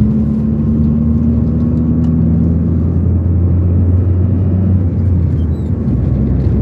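Car engine and road noise heard from inside the cabin while driving: a steady low drone with an even engine hum.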